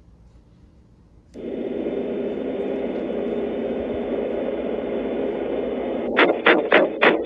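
A vehicle engine running with a steady hum, which starts abruptly about a second and a half in. Near the end comes a rapid run of loud bangs, about three a second.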